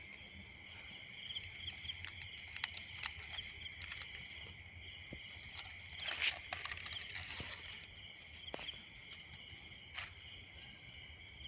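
Crickets chirping steadily in the background, with scattered light clicks and rustles and a slightly louder rustle about six seconds in.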